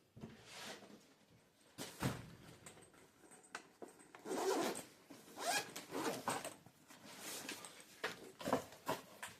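Packaging being handled and opened: short, irregular rustles and scrapes with a few sharp clicks, busiest in the middle.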